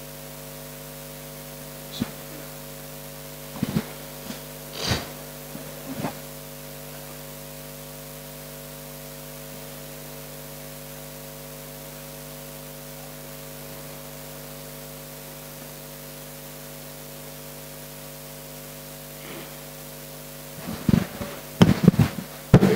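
Steady electrical mains hum from the sound system. A few short knocks come between about two and six seconds in, and a cluster of louder knocks and handling noise comes near the end as a microphone is picked up.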